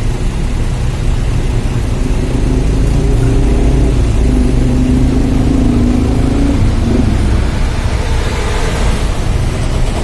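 Hino RK8 bus's rear-mounted diesel engine idling, a loud steady low rumble heard close behind the bus. A higher hum joins it for a few seconds and stops about seven seconds in.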